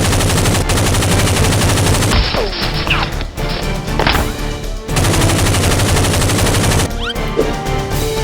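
Rapid automatic gunfire sound effects in two long bursts, the first ending about two seconds in and the second running from about five to seven seconds in, over background music.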